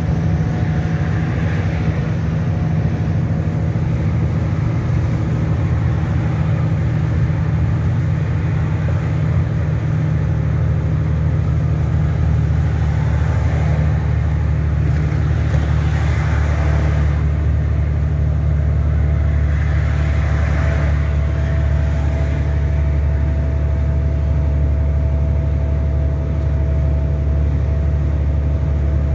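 Engine and road noise inside the cab of a lorry cruising at motorway speed: a steady low drone.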